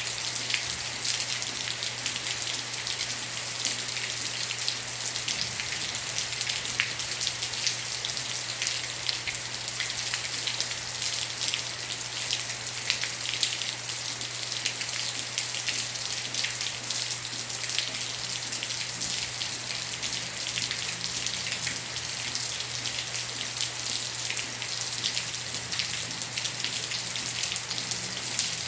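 Light rain falling: a steady hiss with many single drops ticking on a surface.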